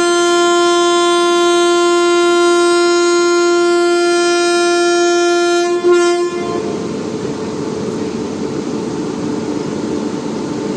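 Indian Railways locomotive horn sounding one long steady blast for about six seconds, followed by the steady rumble of a train running.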